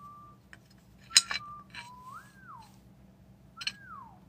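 A person whistling a slow tune: held notes, one that rises and falls, and a falling glide near the end. A sharp click about a second in is the loudest sound, and a second one comes near the end.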